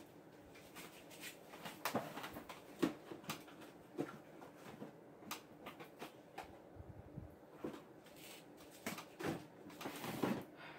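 Irregular clicks, taps and knocks of someone rummaging through craft supplies for a roll of double-sided tape, with a few louder knocks about 2 s, 3 s and 10 s in.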